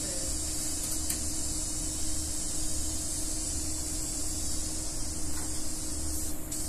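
Steady hiss over a low hum that swells and fades about once a second, with a faint steady tone: the running noise of machinery.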